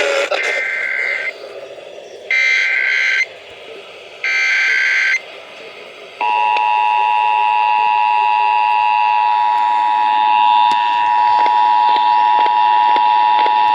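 Emergency Alert System signal broadcast over radio. First come three short bursts of SAME digital header tones, about two seconds apart. About six seconds in, the steady two-tone attention signal starts, marking the start of a Required Monthly Test alert.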